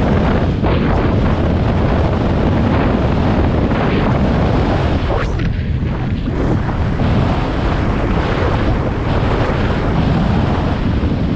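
Wind rushing over the microphone of a camera on a moving motorcycle, a steady loud rush that eases briefly about halfway through.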